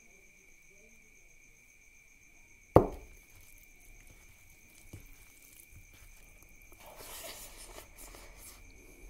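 A single sharp knock about three seconds in, as the emptied bowl is set down on the table, then soft wet squishing of rice and curry being mixed and eaten by hand. Crickets keep up a steady high trill underneath.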